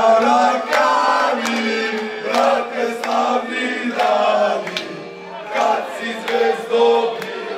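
A group of men singing a football supporters' chant together, loud and in unison, in sung phrases over a held low note.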